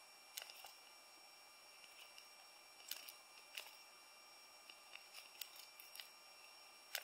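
Faint, scattered clicks and taps of a thin sheet-metal calculator faceplate being pressed back into shape with a hand tool against a wooden board, about half a dozen at irregular moments, over a faint steady high tone.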